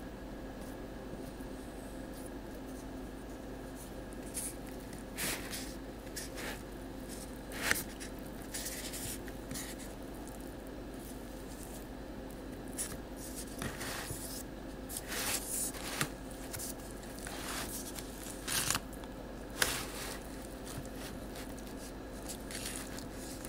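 A utensil spreading thick peanut butter filling in a disposable aluminium pie pan: scattered short scrapes and crinkles of the foil pan, over a steady faint hum.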